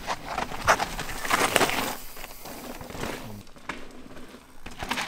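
Mountain bike tyres rolling and skidding over loose dirt and rock on a downhill trail, in uneven bursts of gritty noise. The noise is loudest in the first two seconds, dies down, then picks up again near the end.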